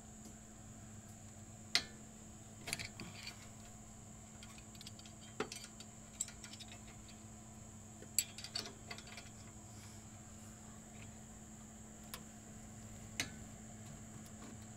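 Scattered sharp clicks and clinks of metal hand tools, some single and some in short clusters, over a faint steady hum.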